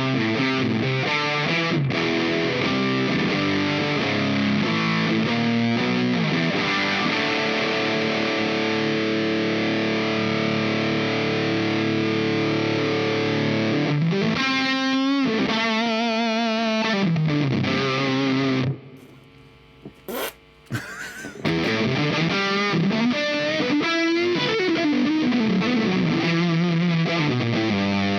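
Electric guitar, a Fender Elemental Jazzmaster, played through the Dazatronyx RAD, a RAT-style distortion pedal. It plays distorted chords and riffs, with wavering, bent notes about halfway through. A brief break about two-thirds of the way in holds a few clicks, then the playing resumes.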